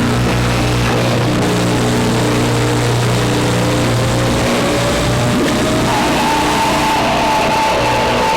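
Electronic drone-noise jam: dense, distorted noise over a low steady drone that drops out about five seconds in. A tone slowly rises through the middle, and a high steady tone takes over near the end.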